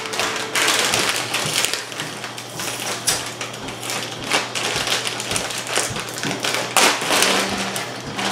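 Water from a kitchen faucet splashing into the sink as raw chicken is rinsed under it, with scattered light taps and knocks.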